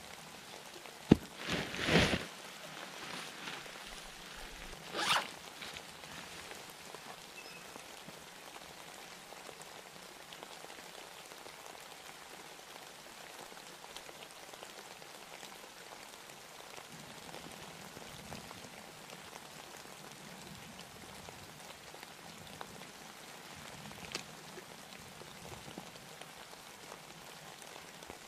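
Light rain falling steadily. There is a sharp click about a second in, then a few short noises over the next few seconds, the loudest about two seconds in.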